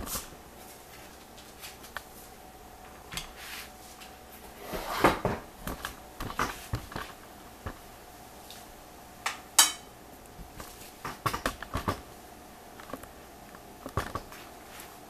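Occasional light knocks and clinks of a ceramic bowl and utensils being handled on a table, with a faint steady hum underneath.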